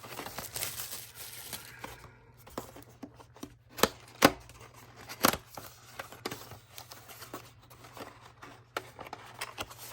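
Hands handling and rummaging through objects: scattered light clicks and knocks, with a few sharper knocks around four to five seconds in, over a faint steady low hum.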